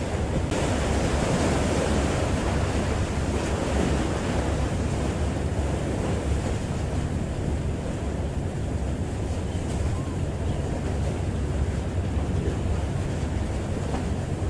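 Wind buffeting the microphone over the sound of sea water and waves, steady throughout, with a low steady hum underneath.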